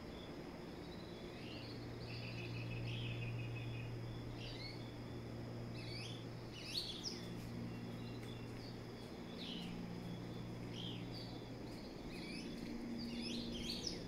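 Several birds singing in the pre-dawn chorus: scattered short chirps and whistles, with a brief rapid trill about two to three seconds in, over a steady low hum.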